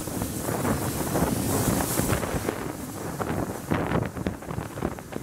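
Wind buffeting the microphone over the running noise of a moving steam-hauled train, with irregular rumbling pulses from SR West Country class locomotive 34027 Taw Valley and its coaches.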